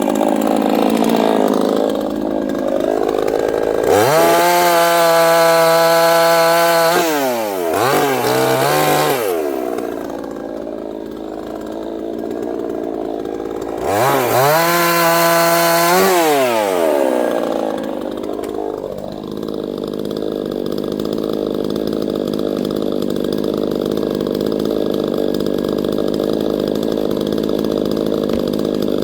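Neotec NCS6800 68cc two-stroke chainsaw engine running, revved up sharply to a high steady pitch twice for a few seconds at a time, with a short blip of throttle between, then settling back to a steady idle.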